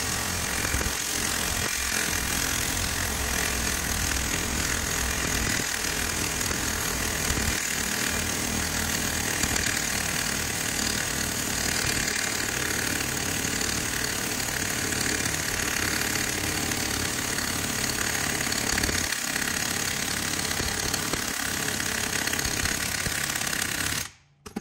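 Air impact wrench hammering without a break on the stub-axle nut, drawing the hub into a new wheel bearing; it stops suddenly near the end. The owner calls this gun weak, with little air behind it from a worn-out old compressor.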